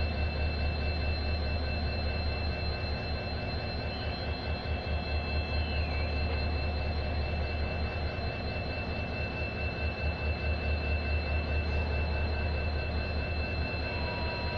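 Low, steady rumble of a WAP-4 electric locomotive hauling a passenger train out of the station, still some way off, with a faint steady high whine above it.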